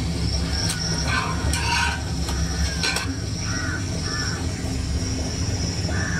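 Outdoor griddle cooking: a metal utensil clicks and scrapes against the flat iron griddle in short sharp strokes. Under it runs a steady low rumble and a thin steady high tone.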